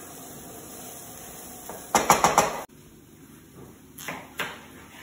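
A steady hiss of onions frying in a pan, then a quick run of about five loud knocks of a metal spoon against the pan. After a cut, a kitchen knife slices through a raw potato onto a plastic chopping board twice.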